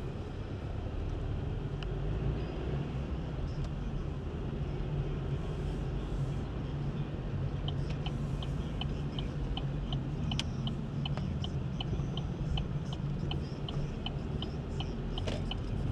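Interior drone of a car with a 1.7 CDTI four-cylinder turbodiesel driving along, a steady low engine and road rumble. About halfway in, a light regular ticking starts, about three ticks a second, and stops shortly before the end.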